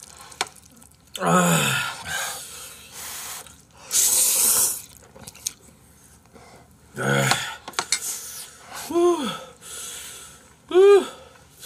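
Two men reacting to very spicy food with gasps and pained vocal sounds: a short 'ah' about a second in, a hissing breath about four seconds in, then two rising-and-falling 'ooh' exclamations near the end, the second the loudest.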